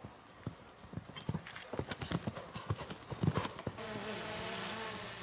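A ridden pony's hoofbeats, coming faster and louder for about three seconds. Near the end the wavering buzz of a camera drone's propellers sets in.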